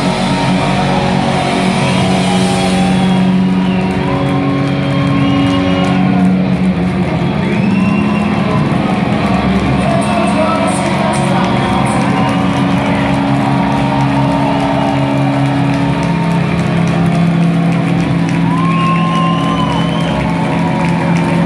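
Live rock band playing loud: electric guitars holding long ringing notes over drums and cymbals, in a concert hall.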